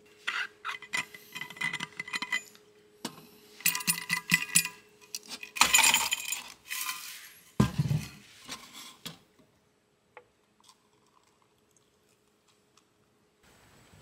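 Ice cubes rattling out of a thermos and clinking into a metal camp mug, in a few quick runs of bright clinks. About halfway through there is a louder rushing sound and a low thump.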